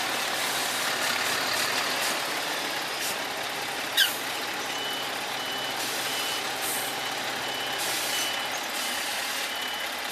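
Volvo FH16 heavy truck's diesel engine running with a steady drone as the truck manoeuvres. From about halfway through, its reversing alarm beeps about twice a second. A short, sharp falling squeal comes about four seconds in.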